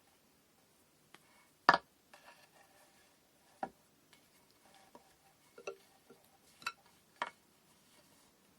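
Small hard braiding tools and bobbin weights being handled during kumihimo preparation: a handful of sharp, separate clicks and knocks at irregular intervals, the loudest about two seconds in.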